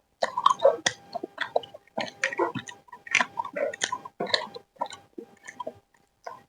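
A person chewing food close to the microphone, an irregular run of wet clicks and smacks starting a moment in.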